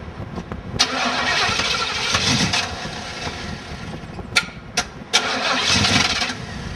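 Starter cranking a Chevrolet Monte Carlo SS engine that has sat unstarted for years. Two tries: a clunk and about two seconds of cranking, two sharp clicks, then another clunk and about a second more of cranking. The engine does not catch.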